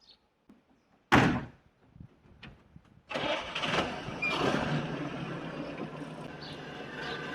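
A vehicle door shuts with a loud thud about a second in. About three seconds in, an engine cranks and starts, then settles into a steady idle.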